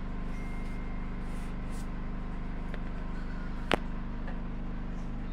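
Steady low mechanical hum with a single sharp click a little past the middle.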